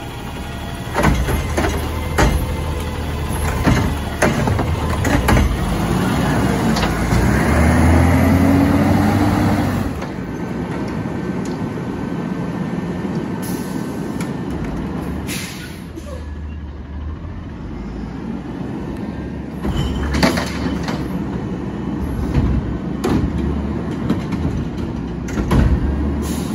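Autocar ACX garbage truck working a Curotto-Can: sharp clanks and bangs as the automated arm grabs and tips a recycling cart, then a louder spell with a whine that rises and falls as the hydraulics work. After that the diesel engine runs steadily, with more clanks from the can and arm.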